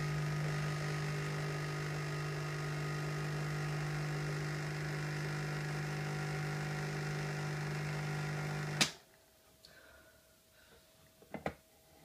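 Nescafé Dolce Gusto capsule machine's pump buzzing steadily while it dispenses hot chocolate into a mug, then cutting off abruptly with a click about nine seconds in. A couple of light knocks follow near the end.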